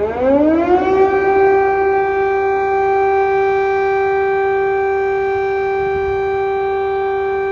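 Air-raid siren winding up in pitch, then holding a loud, steady wail on one note.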